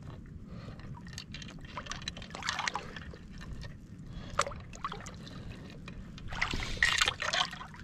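Shallow seawater splashing and sloshing in irregular bursts, with a longer spell of splashing near the end, over a steady low rumble of wind on the microphone.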